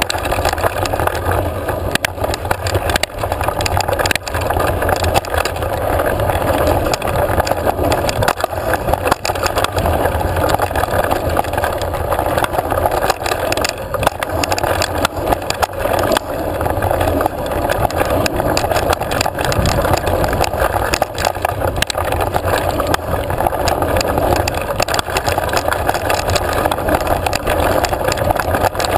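Mountain bike riding down a dry, dusty dirt singletrack: a steady rumble of tyres and rushing air, broken by frequent clicks and rattles of the bike jolting over bumps.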